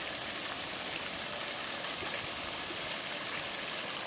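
Steady gush of water pouring into a shallow plastic-lined pond, splashing on the water's surface.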